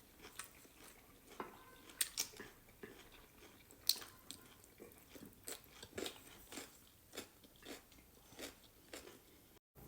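A person chewing and biting into stir-fried chicken close to the microphone, with irregular small crunches and mouth clicks.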